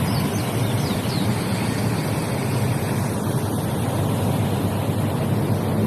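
Running water: a steady, loud rush of flowing water with no breaks.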